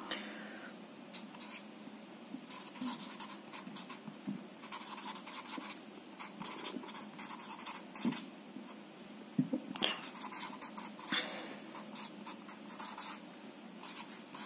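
Felt-tip whiteboard marker writing on a sheet of paper: a run of short, scratchy strokes as words are written out letter by letter.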